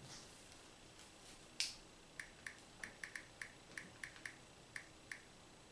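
Samsung Galaxy Tab E tablet's on-screen keyboard clicking faintly with each key tap as a password is typed: about a dozen short clicks at an uneven pace, after a single sharper click about a second and a half in.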